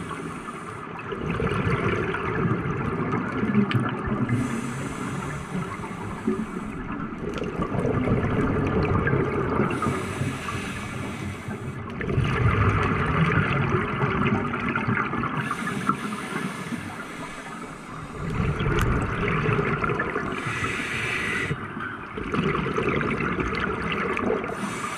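Scuba diver breathing through a regulator underwater, in a slow, regular cycle: a hiss on each inhale, then a rush of gurgling bubbles on each exhale.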